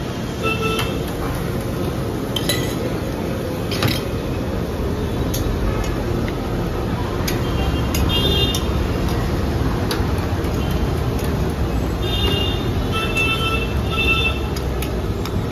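A metal spatula clinking and scraping against a large flat griddle as parottas are turned, a sharp clink every second or two, with short metallic rings about 8 and 12 to 14 seconds in. A steady din runs underneath.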